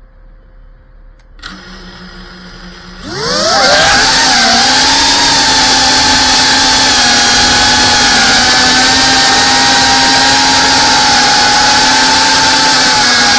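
GEPRC Cinelog 35 cinewoop FPV drone's motors: a click about a second and a half in, then the motors spin up to a low steady hum. About three seconds in they rise sharply in pitch and loudness as the throttle comes up for takeoff, settling into a loud steady whine with rushing air as the drone flies.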